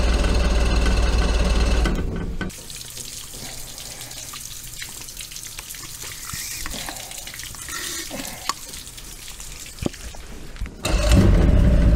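Force 120 hp two-stroke outboard running on fuel squirted down the carburetor, then cutting out suddenly about two seconds in as the priming fuel runs out. A quieter hiss with a few clicks follows while it is primed again, and near the end the motor fires and runs again.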